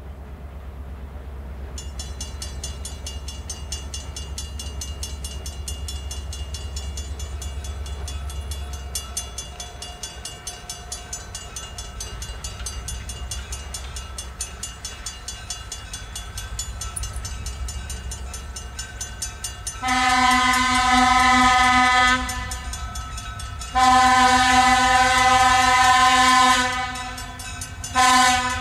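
Grade-crossing bell starts ringing about two seconds in and keeps up its steady rapid strokes as a diesel locomotive approaches with a low engine rumble. Near the end the locomotive's multi-chime air horn sounds two long blasts and a short one, the start of the long-long-short-long grade-crossing signal.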